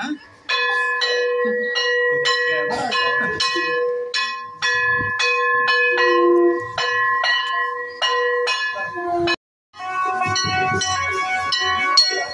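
Metal struck over and over, about three strokes a second, each stroke ringing on in a steady bell-like tone. It cuts off briefly about nine seconds in and resumes as a denser, higher ringing.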